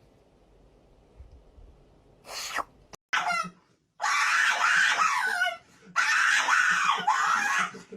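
A voice screaming: a short cry and a falling cry, then two long, loud screams with a wavering pitch.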